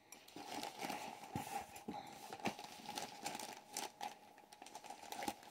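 Plastic packaging wrap crinkling and rustling as hands handle and pull at it around a packed bag, with irregular crackles and small clicks.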